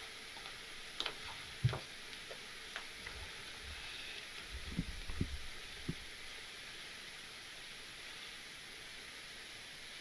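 Low, steady hiss of room noise with a few faint clicks in the first few seconds and a short run of soft low thumps about five seconds in, fitting someone settling onto a leather sofa beside a seated person.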